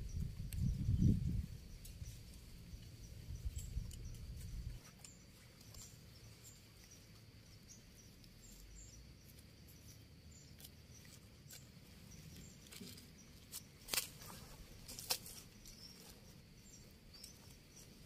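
Hands working loose soil while planting a cashew seedling: soft scraping and crumbling of earth, with a few sharp crunches a little over two-thirds of the way through. A low rumble fills the first few seconds, and faint chirping runs on in the background.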